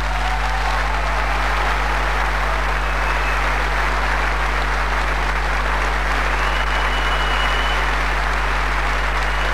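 A large concert audience applauding steadily in a hall, over a steady low hum.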